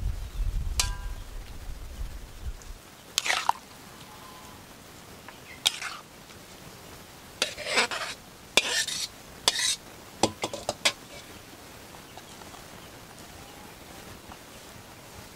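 A metal ladle scrapes and clinks against a metal wok and serving plate as a stir-fry is dished up: a scattered series of short scrapes and clicks. A low rumble runs under the first few seconds.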